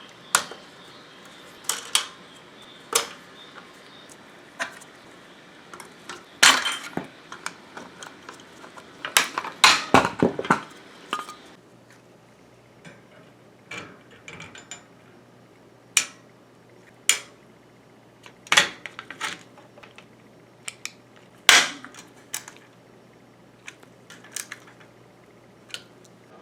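Dishwasher rack and rack adjuster parts being handled and fitted: irregular sharp metallic clicks and clinks, with a busy cluster of knocks about ten seconds in.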